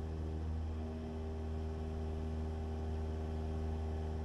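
Cessna 172's piston engine running steadily in the climb, a constant low drone with a few held tones and no change in pitch.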